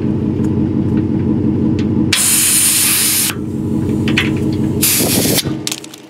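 Compressed air hissing out of the truck's onboard air system in two bursts, one of about a second and a shorter one near the end, over a steady motor hum that cuts off sharply right after the second burst.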